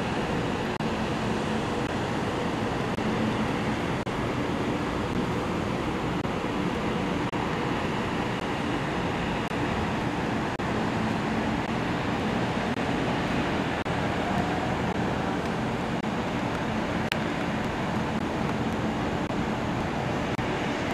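Steady hum of city traffic heard from high above the streets: an even, unbroken wash of noise.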